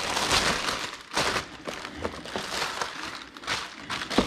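Plastic poly mailer bag being torn open and crinkled by hand, in a series of irregular ripping, rustling bursts.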